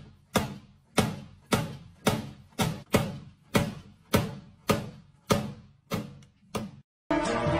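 Background music of evenly spaced, sharply struck percussive notes, about two a second, each dying away quickly. Near the end it breaks off and a fuller music track begins.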